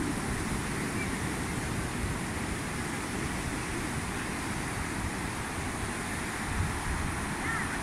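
Steady rushing of breaking surf mixed with wind rumbling on the microphone, with no distinct events.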